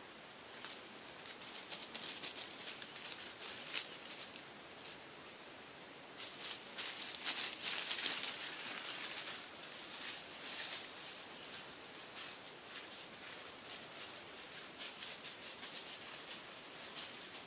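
Dry leaves and brush rustling and crackling in irregular bursts, with a short quiet gap and the densest crackling several seconds in.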